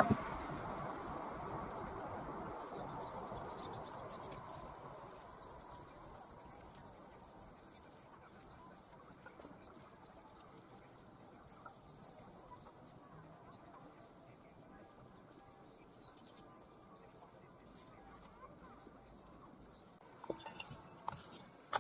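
Faint outdoor background. The noise of a distant engine fades away over the first few seconds, then faint high chirps repeat about twice a second.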